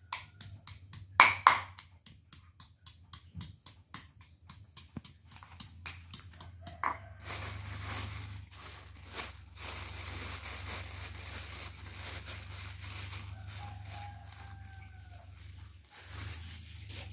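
Stone pestle pounding in a stone mortar, about four sharp knocks a second. About seven seconds in the pounding stops and a plastic bag crinkles and rustles as it is handled and opened.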